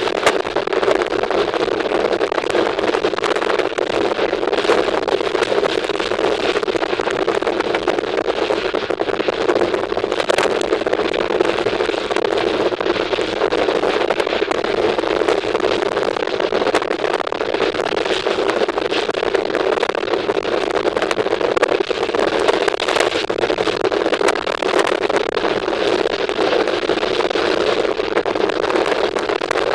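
A moving train heard from on board: a steady rushing noise with faint irregular clicks.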